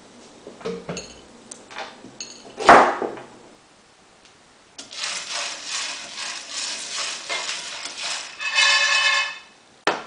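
Dried sweet dumpling squash seeds clicking as a handful is let fall onto a plate, with one loud knock about three seconds in. From about five seconds in, the seeds rattle and scrape as they are stirred in a dry frying pan with a wooden utensil, ending in a louder scrape with a ringing tone.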